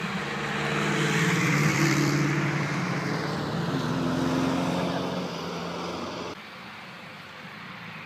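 Vintage cars driving past one after another, their engines running with rising and falling pitch over tyre and road noise. The sound drops suddenly about six seconds in to a quieter passing-car noise.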